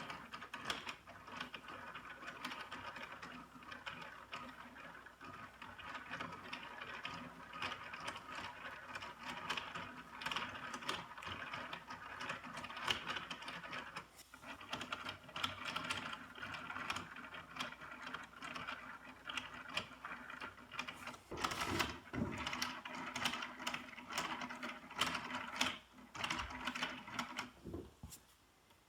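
Hand-cranked Lego Technic automaton running: plastic gears and linkages clicking and rattling in a rapid, steady stream, with a short pause about halfway through.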